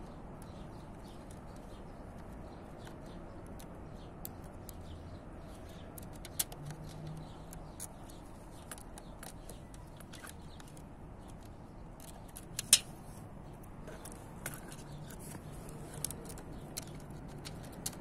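Scattered small clicks and taps of fingers working a keyboard's ribbon-cable connector into a laptop motherboard, over a steady low outdoor background. One sharper click comes about two-thirds of the way through.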